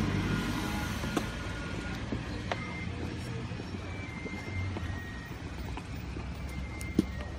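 Low steady vehicle rumble heard inside a car's cabin, with a few sharp clicks, the loudest near the end, as the dash camera's thin power cable is pressed into the headliner trim.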